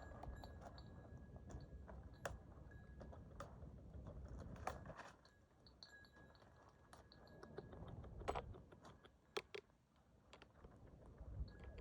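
Hoof-trimming tools cutting and scraping cow hoof horn: soft scraping and crunching with scattered sharp clicks.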